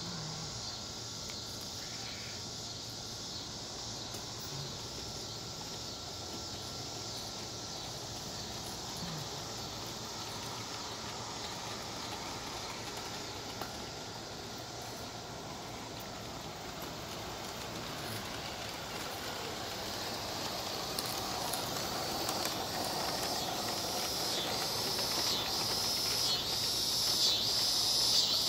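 Live steam LGB/Aster Frank S garden-railway locomotive running, a steady steam hiss that grows louder as it approaches, with rhythmic exhaust chuffs coming through over the last several seconds.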